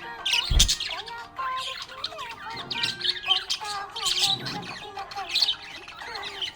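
Budgies chirping and warbling without a break, in quick rising and falling chirps. There is a short low thump about half a second in.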